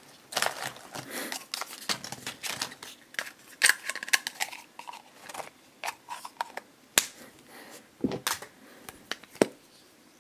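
Irregular sharp plastic clicks, taps and rustling from a small hard-plastic toy test tube and its snap-on cap being pulled apart and worked to get the figures out.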